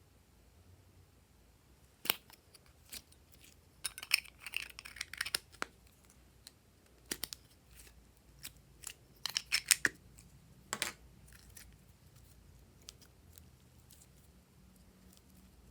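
Glossy slime being pressed, stretched and mixed by hand, giving scattered sharp clicks and crackles, some single and some in short bursts.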